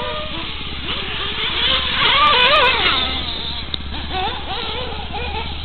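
Several radio-controlled cars' motors whining and revving, their pitches rising and falling as they speed up and slow down. The sound is loudest about two to three seconds in, as cars pass close.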